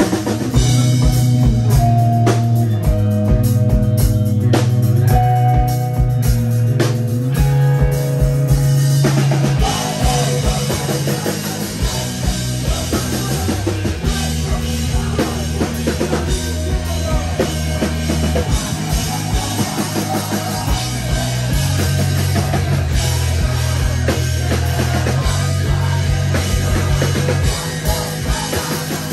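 Live amplified rock band playing an instrumental passage on electric guitars, bass and drum kit. The playing shifts to a denser, fuller texture about nine seconds in.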